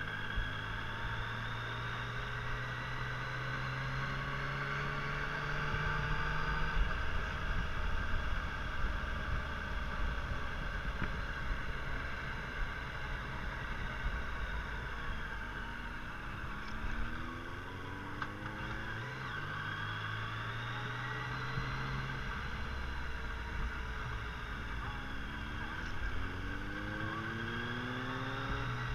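Yamaha Tracer 900's three-cylinder engine running at low road speed, its pitch rising several times as it pulls through the gears, with a steady rush of wind.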